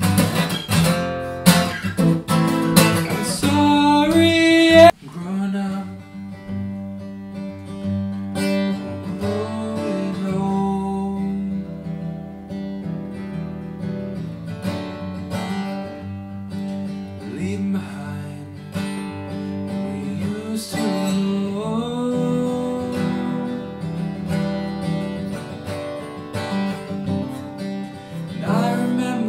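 Acoustic guitar strummed hard for about five seconds, then dropping suddenly to a softer, quieter instrumental passage.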